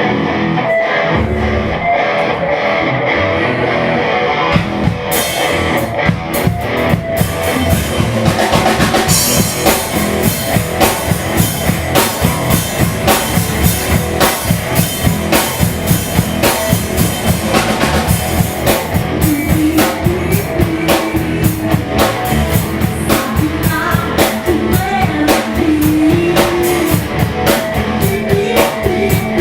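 Rock band playing live: guitar at first, then the drum kit joins about five seconds in and the band keeps up a steady driving beat, with no vocals.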